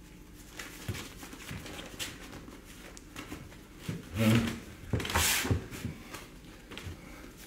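A sheet of paper rustling and crackling as a letter is unfolded and handled, loudest about four to five and a half seconds in.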